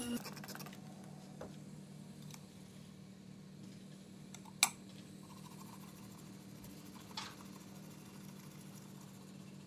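Light clicks of a steel plane iron being handled and set down on a diamond sharpening plate, one sharp click about halfway and two softer ones, over a faint steady hum.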